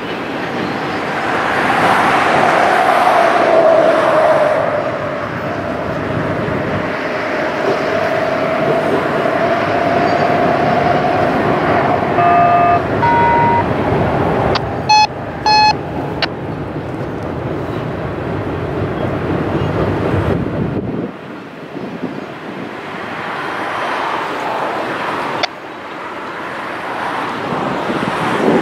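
Double-stack intermodal freight cars rolling steadily over a steel girder bridge. For the first half there is a long, wavering wheel squeal, and a few short high beeping tones come near the middle.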